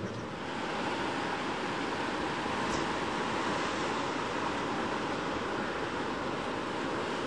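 Sea surf washing against the rocky shore: a steady rushing that swells a little about a second in.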